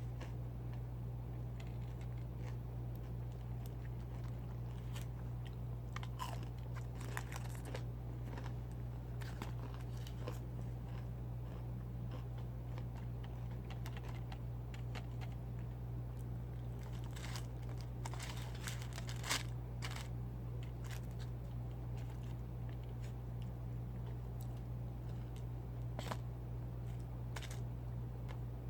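Close-up eating of fried chicken tenders: scattered crunching bites and chewing on the breaded crust, over a steady low electrical hum.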